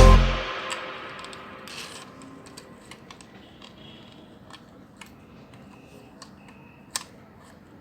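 Music dies away in the first second or so, then faint, irregular light clicks, with one sharper click about seven seconds in.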